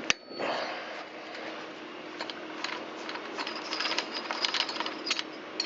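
Small metal clicks and scrapes of an Allen tool working the cylinder base screws loose and unthreading them on a Shindaiwa T272X trimmer engine, with one sharp crack right at the start.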